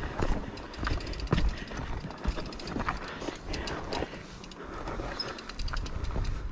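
Mountain bike on a rough, rocky trail: a quick, irregular run of clicks and knocks from the bike's parts, over a low rumble.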